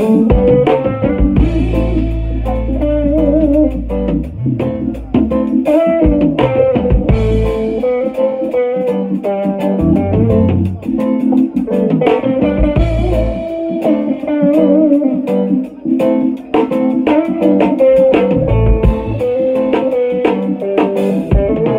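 Live band playing instrumentally at a sound check: plucked guitar lines over bass guitar and drums.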